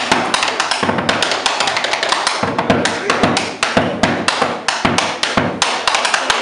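A wooden-shelled drum with a pale skin head beaten with sticks in a fast, steady rhythm of sharp strikes, several a second.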